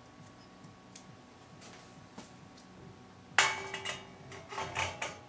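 Schlumpf drive unit knocking against the steel bicycle frame's bottom bracket shell as it is fitted: a sharp metallic clank with a short ring about three and a half seconds in, then a second, softer knock near the end, amid quiet handling.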